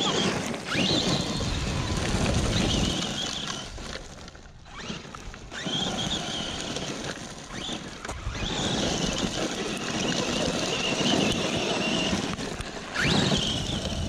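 ARRMA Talion XL RC truck's brushless electric motor giving a high whine under throttle, with the tyres tearing through loose gravel and dirt as it spins donuts. The whine sweeps sharply up in pitch when the throttle is punched, about half a second in, around the middle and near the end, and fades twice as the truck moves away.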